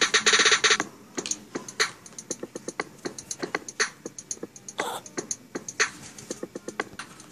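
Pencil scratching across paper in quick short strokes, several a second, picked up loud and close by a clip-on microphone lying on the sheet. A dense rush of rapid scratching comes in the first second, and one longer stroke about two-thirds of the way through.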